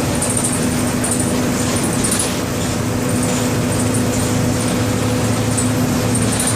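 MWM 4.12 TCE inline four-cylinder diesel of a Volksbus 15-190 EOD city bus running steadily at an even engine speed.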